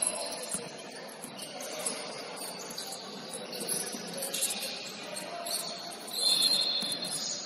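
Basketball sneakers squeaking on a hardwood gym floor over the gym's background hum, in short high squeaks, the longest and loudest about six seconds in.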